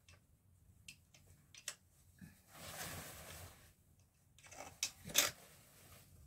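Curtain fabric rustling as it is handled and hung, with scattered small clicks from the curtain being fastened at the rail. There is a longer rustle about three seconds in and a quick cluster of clicks and rustles around five seconds in, the loudest a sharp click near the end of that cluster.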